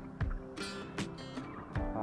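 Background music with a steady beat of short, sharply struck notes, about two or three a second, over sustained tones.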